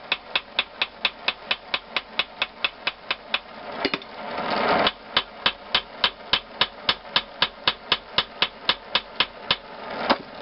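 Ball-peen hammer striking the heated head of an engine valve clamped upright in a steel bench vise, peening it into shape with rapid, even blows about four a second. The hammering pauses twice, around four seconds in and again near the end, while a rising hiss swells.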